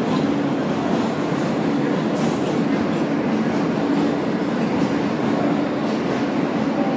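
R143 subway car running at a steady speed, heard from inside the car: the wheels rumble continuously on the rails under a steady low hum.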